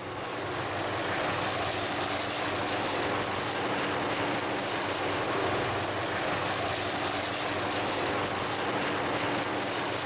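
Sugarcane harvester running steadily as it cuts cane: a steady engine hum under a dense rushing noise, fading up over the first second.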